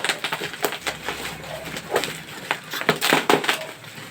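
Plastic packaging crinkling and rustling as a small item is unwrapped, in irregular sharp crackles.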